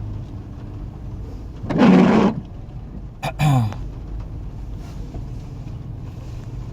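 Car engine and road noise inside the cabin, a steady low hum while driving. A short, loud, noisy burst comes about two seconds in, and a brief falling tone about a second and a half later.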